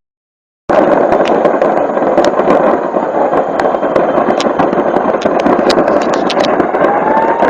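Fireworks stock going off in a burning warehouse: a dense, continuous crackle of rapid cracks over a steady roar, starting suddenly about a second in.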